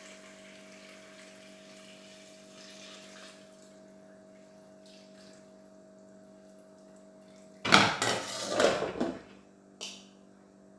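Faint pouring of liquid into a pot at first, then a loud clatter of a metal pot and lid being handled about three-quarters of the way through, with a short click after it. A steady low hum runs underneath.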